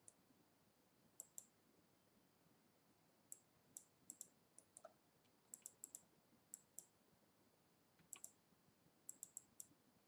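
Faint, scattered clicks of a computer mouse, many in quick pairs, over near-silent room tone.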